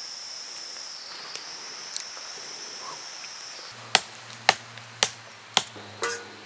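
A steady high-pitched drone for the first few seconds, then chopping: five sharp, even strokes about every half second.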